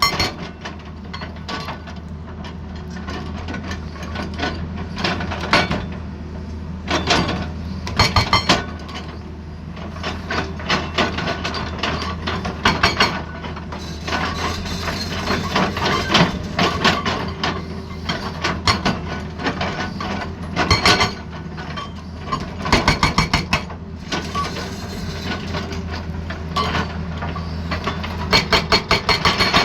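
Excavator-mounted hydraulic breaker hammering in short bursts of rapid blows, about a second each and several times over, above the steady running of the excavator's diesel engine.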